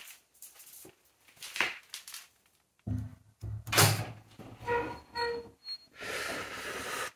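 Toilet-stall door handled and pushed open: scattered small clicks, a heavy low thunk, then two short squeaks from the hinge. It ends with a long sharp inhale through the teeth, about a second long.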